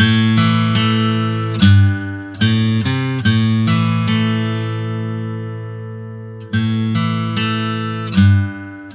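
Outro music on guitar: picked notes and chords that fade after each attack, with one chord left ringing for about three seconds midway.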